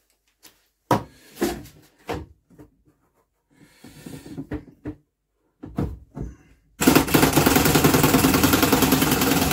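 A power impact wrench, set to its lowest torque, starts hammering suddenly about seven seconds in. It is a fast, continuous rattle as it works a bolt loose on the cowl of an old BSA stationary engine. Before it there are a few scattered clicks and knocks as the tool and socket are handled.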